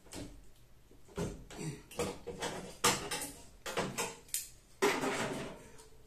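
Knocks and clatter of a tumble dryer's dented sheet-metal top panel being worked by hand with a wooden block to straighten it: about ten sharp knocks, the last and longest near the end.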